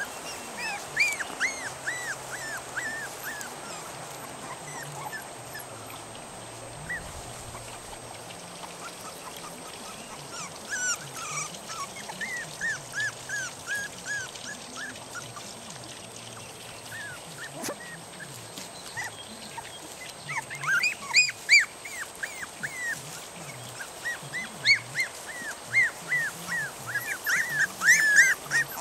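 Several three-and-a-half-week-old Norrbottenspets puppies whining in runs of short, high-pitched whimpers, with quieter stretches between. The whining grows louder and denser in the second half. The pups have been woken from sleep and want their mother to feed them.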